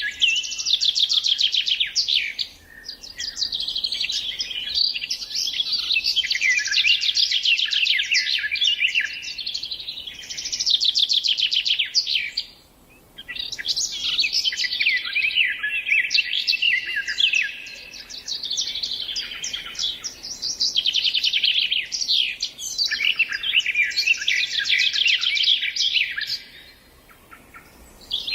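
Songbird singing long phrases of rapid, high twittering and trilled notes, each phrase running several seconds, broken by brief pauses, one about halfway through and one near the end.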